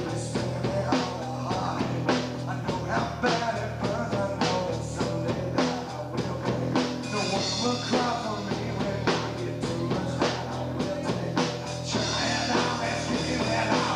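Three-piece rock band playing live: distorted electric guitar, bass guitar and drum kit, with regular drum hits over sustained bass and guitar. Near the end the drum hits thin out and the band settles into a steadier, denser sound.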